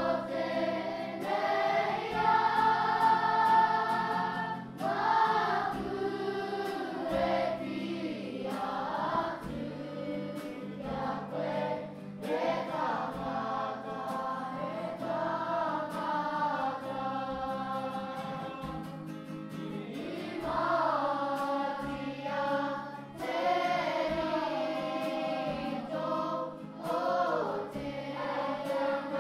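A group singing a Māori waiata together in unison, over a steady accompaniment of low notes that change step by step.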